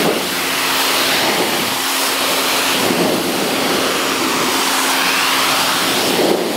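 Pressure washer jet spraying water onto a fabric car seat: a loud, steady hiss of spray with the machine's steady hum underneath.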